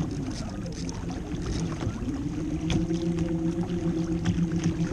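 Water rushing and slapping against a fishing kayak's hull as a hooked bluefin tuna tows it along, with a steady low hum from about two seconds in.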